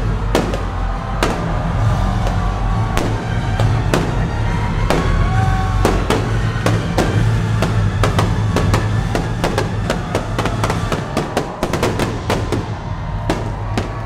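A fireworks display: many sharp bangs and crackles at irregular intervals, with a quick run of bangs about three quarters of the way through, over steady music with drums.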